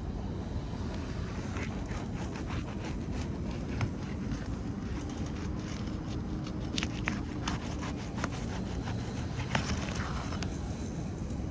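Metal shingle tool scraping and clicking under asphalt shingles as a roofing nail is worked loose, in short irregular strokes over a steady low rumble.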